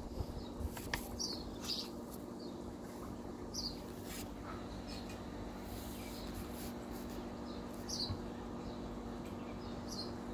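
Small birds chirping on and off, short high chirps at irregular intervals, over a steady low hum, with a few faint clicks.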